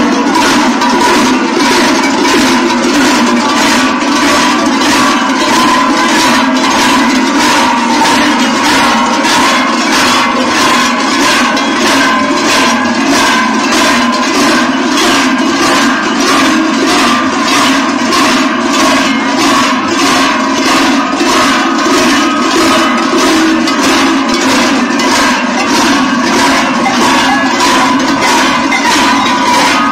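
Many large Swiss Treicheln (sheet-metal cowbells) swung in unison by a marching group. They clang in a steady, even rhythm that goes on without a break.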